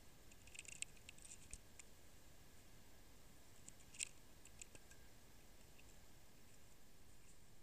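Near silence broken by a few faint, light clicks: a small cluster about a second in and one sharper click at about four seconds.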